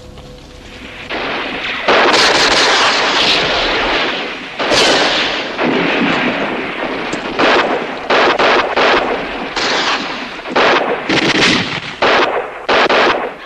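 Small-arms gunfire in a staged street battle. It builds about a second in, runs in long rolls of rapid fire, then breaks into a string of shorter separate bursts in the second half.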